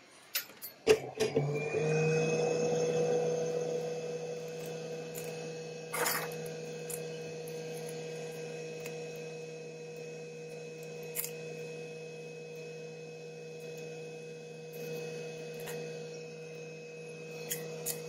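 A small electric motor or fan spins up about a second in, after a few sharp clicks, then hums steadily on a low and a mid tone. A few light handling clicks are heard over the hum.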